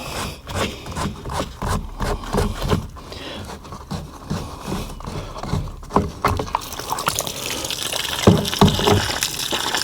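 Knocks and clicks as the drain on a sprayer tank is worked open, then from about seven seconds in liquid rushes out in a steady stream: the old, moldy spray product being drained from the tank.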